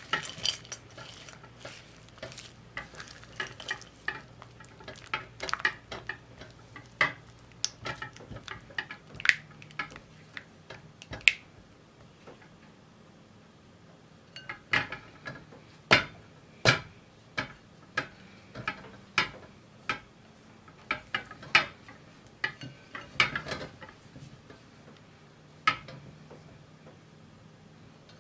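Silicone spatula stirring melting chocolate and butter in a glass bowl, with irregular sharp clicks and taps where the spatula meets the glass. There is a pause of about three seconds near the middle before the scraping and tapping resume.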